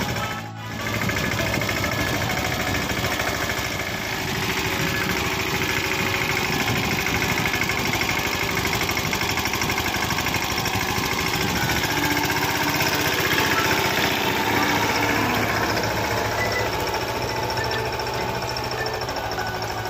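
Mahindra Yuvraj 215 NXT mini tractor's single-cylinder diesel engine running steadily, pulling a cultivator through tilled soil, with a brief dip in sound about half a second in.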